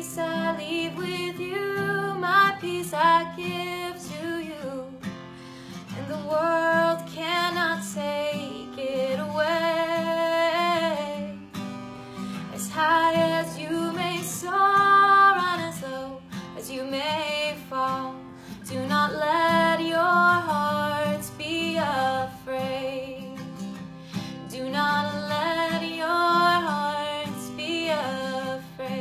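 Song music: a female voice singing a slow melody in phrases of a few seconds, with short breaths between them, over acoustic guitar accompaniment.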